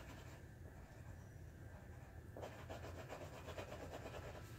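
Soft, scratchy rubbing of a colouring utensil stroked back and forth on a paper colouring page, louder in the second half, over a low steady hum.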